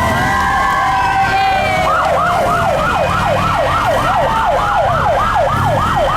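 Emergency vehicle siren sounding a slow wail, then switching about two seconds in to a fast yelp of about three falling sweeps a second, over a low vehicle rumble.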